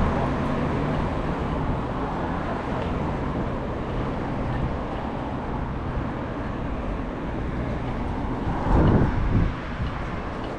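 Street traffic noise: vehicles running and passing, a steady rumble with a louder swell about nine seconds in.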